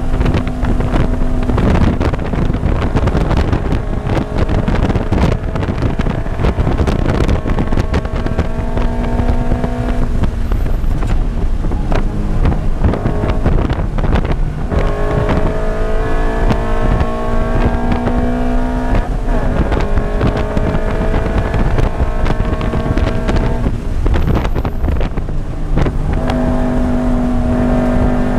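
2013 Scion FR-S's flat-four engine with an aftermarket header, heard from inside the cabin, running hard near 6,000 rpm at full throttle. Its pitch climbs slowly and drops back briefly several times, over wind and road noise.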